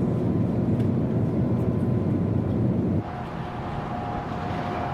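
Steady flight-deck noise of an Airbus A380 on approach: airflow and systems, strongest low down. About three seconds in it drops a few decibels and a faint steady tone comes in.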